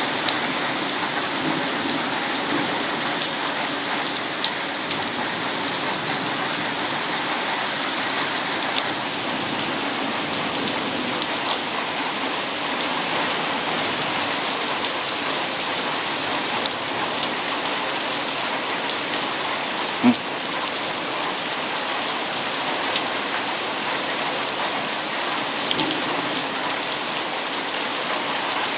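Heavy rain pouring steadily onto surfaces in a thunderstorm, a dense, even hiss of drops, with one short sharp knock about two-thirds of the way through.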